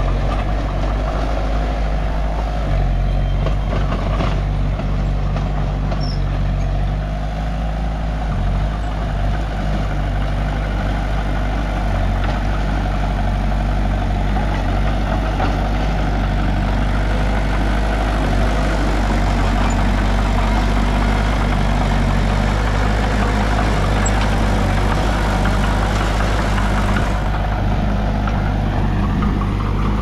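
Heavy diesel engine of an old tracked excavator running steadily close by, with a bulldozer's engine working on the slope behind.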